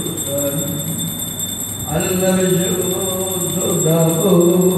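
A man's voice chanting a liturgical prayer in drawn-out, sung phrases, louder from about two seconds in, over a faint steady high tone.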